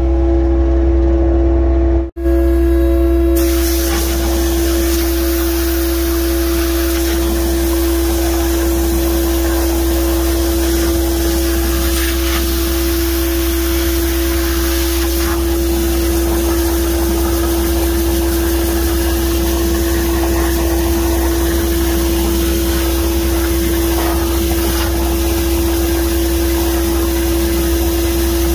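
Pressure washer spraying water through the grate into a concrete pump truck's hopper: a steady hiss that comes in about three seconds in and carries on. Under it an engine runs with a steady hum and low rumble, and the sound cuts out for an instant about two seconds in.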